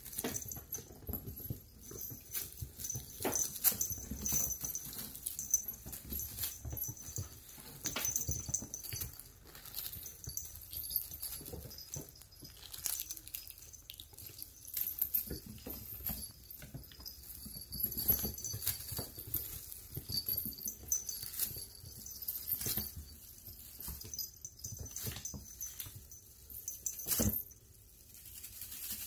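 Bengal kittens scampering and pouncing while chasing a tinsel wand toy: many quick light taps and scuffles of paws, with the high crinkle of the tinsel streamers throughout.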